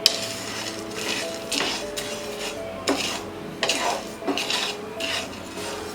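A utensil stirring and scraping whole spices as they dry-roast in a pan, with irregular scrapes and clinks against the pan about once a second.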